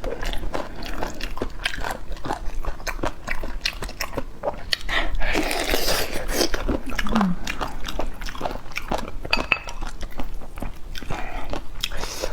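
Close-miked eating sounds: irregular biting and chewing with crunching and wet mouth clicks.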